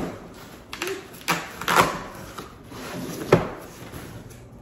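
A cardboard box being opened and its packaging handled by hand: rustling and scraping with a few sharp knocks, the loudest a little over three seconds in.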